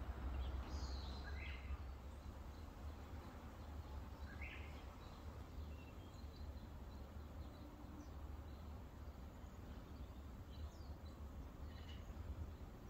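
Faint outdoor ambience: a low steady rumble with a few short, high bird chirps scattered through, a pair about a second in, one a little before halfway and more near the end.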